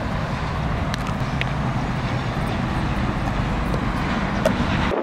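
Steady wind rumble buffeting the microphone, with a few faint sharp clicks.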